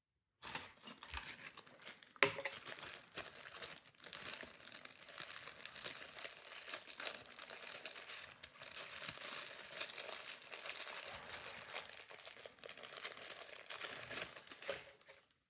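Continuous crinkling and crackling of something being handled, with a sharp click about two seconds in; it starts and stops abruptly.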